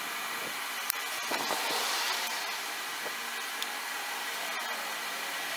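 Steady background hiss with a few sharp metallic clicks, one about a second in, from side end cutters being worked on a short brass pin.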